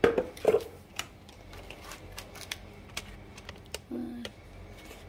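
Scattered light clicks and knocks, with two louder knocks in the first half second and a brief voiced sound about four seconds in.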